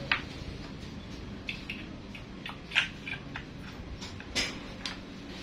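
Light metal clicks and scrapes from the pulley and spring being worked by hand in the aluminium recoil-starter housing of a Yamaha 40 hp outboard during reassembly, with louder clicks about three seconds in and again past four seconds.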